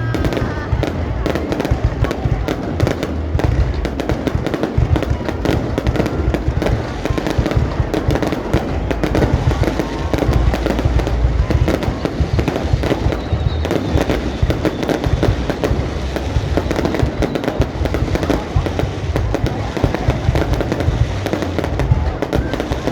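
Fireworks display: a dense, continuous barrage of bursts and crackling over deep booms, with no pause.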